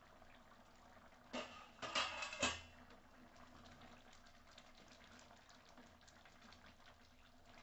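Thick rajma curry boiling in a pan: a wooden spatula stirs through the gravy with a louder stretch of wet sloshing about a second and a half in, then the gravy keeps bubbling with many small pops.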